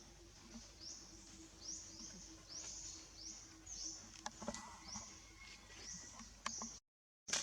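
A bird calling over and over outdoors: a short, high chirp repeated about every half second, with a few faint clicks between. The sound cuts out completely for about half a second near the end.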